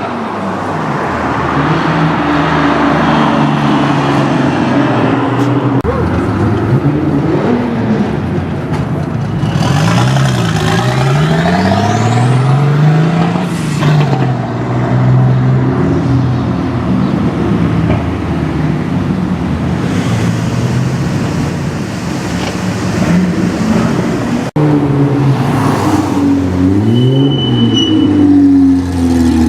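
Nissan Z sports car engines running, with the throttle blipped again and again so the engine note rises and falls in repeated revs. The revving is busiest in the middle and near the end.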